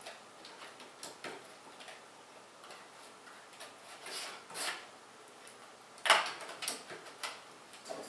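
Scattered small clicks, taps and brief rustles of computer parts and a hand tool being handled on a table, with the sharpest clacks about six to seven seconds in.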